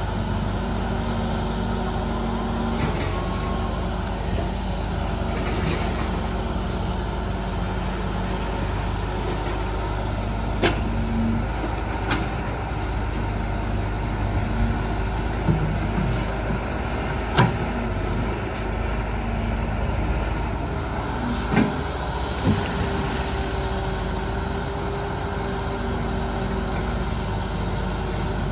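Sumitomo S265 long-reach excavator's diesel engine running steadily under hydraulic load through a dig, swing and dump cycle. Several sharp knocks are scattered through the middle of the cycle.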